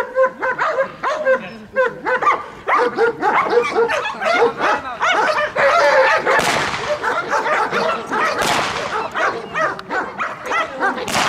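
A Belgian Malinois barking rapidly and without pause while pistol shots crack out about six and a half and eight and a half seconds in, and again at the very end. The dog keeps barking through the shots, showing no reaction to gunfire.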